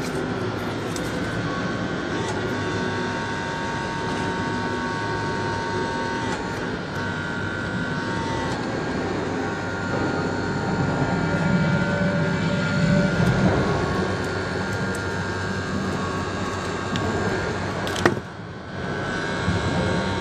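Holmatro hydraulic pump unit's motor running steadily with a droning hum, driving a hand-held hydraulic cable cutter. The drone grows heavier for a few seconds in the middle. A single sharp crack comes near the end, then the sound briefly dips.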